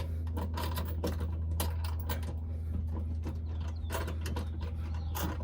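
Irregular metal clicking and clinking as a steel step-rail mounting bracket and its hardware are worked into place under a pickup, over a steady low hum.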